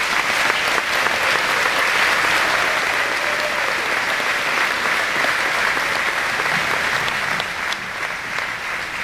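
A large audience applauding in a gymnasium: many hands clapping together, starting suddenly and easing off slightly near the end.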